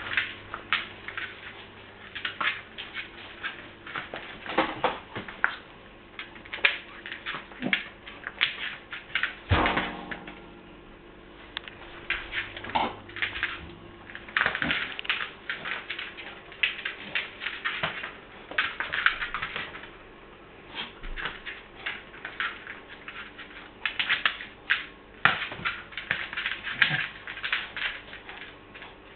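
A Dandie Dinmont Terrier puppy playing with a rubber ball on a rope loop: repeated bursts of quick clicking and scrabbling, with toy knocks. One heavier knock about ten seconds in rings briefly.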